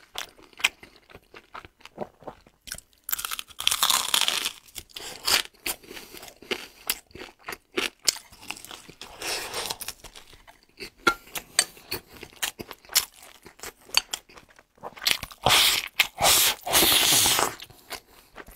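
Close-miked eating: crunching bites and chewing of fried chicken, with many short mouth clicks and two longer, louder stretches of crunching, one a few seconds in and one near the end.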